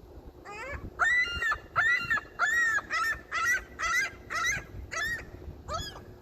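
A gull calling: a run of about nine loud calls in quick, even succession, each rising then falling in pitch. The first call is a lower rising note.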